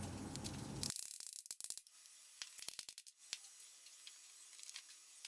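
Faint, scattered light clicks and taps of plywood birdhouse pieces being fitted together, with a soft hiss in the first second that cuts off abruptly.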